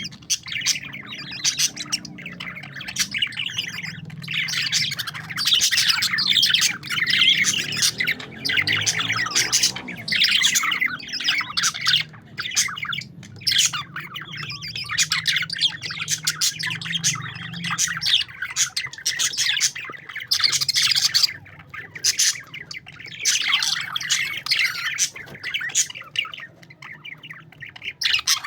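A group of parakeets chattering, chirping and squawking without pause, the calls overlapping in a busy, high-pitched chorus that swells and eases in waves.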